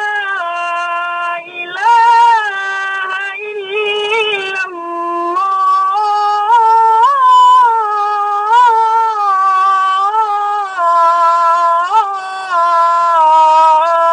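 A man's solo, unaccompanied voice chanting the ezan (Islamic call to prayer) in a high register. He draws out long held notes with wavering melismatic ornaments, pausing only briefly for breath.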